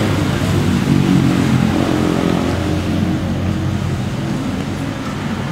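Motor vehicle engine running with a steady low hum, loudest about a second in and slowly easing off.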